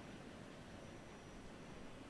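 Near silence: a faint, steady hiss with a low rumble beneath it.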